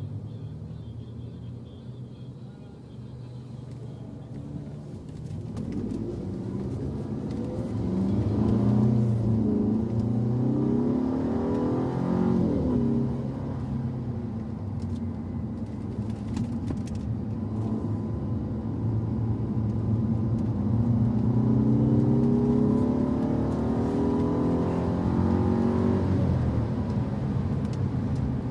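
Car engine under hard acceleration on a circuit lap: the note climbs, drops back about halfway through, then climbs again.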